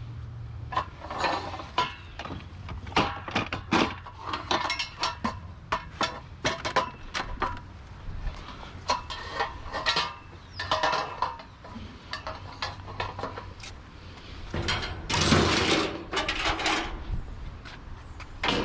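Scrap objects being handled: irregular knocks, clanks and rattles, with a longer, denser rattling clatter near the end, over a low steady hum.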